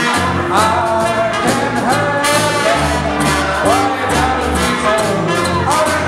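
Small swing jazz band playing live: a man singing over trumpet and trombone, with plucked double bass and snare drum keeping a steady beat.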